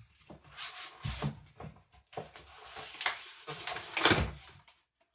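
Handling noises as PC hardware is moved and set down on a work surface: a run of rustles and knocks, the loudest thump about four seconds in.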